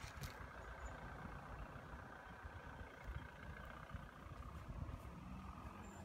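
Faint outdoor ambience: an uneven low rumble under a steady hiss, with a very short high chirp about a second in and another near the end.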